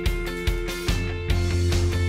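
Background rock music with guitar and a steady beat of about two and a half strokes a second; about a second in, a held low bass line comes in and the music grows fuller.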